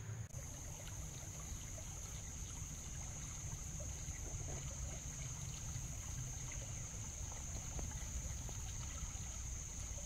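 Shallow woodland creek running over a stony bed, a steady trickling and rushing of water, with a steady high-pitched whine over it throughout.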